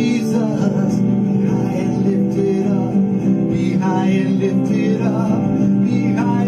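Worship song with acoustic guitar and a man singing.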